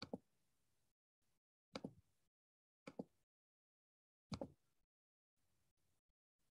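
Near silence on a video-call line, broken by four faint, short knocks spaced irregularly a second or two apart.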